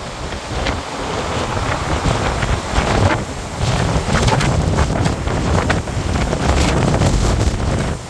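Strong blizzard wind gusting hard and buffeting the microphone in loud surges.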